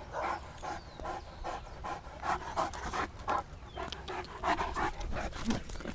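Saint Bernard dog panting fast and steadily, about three breaths a second.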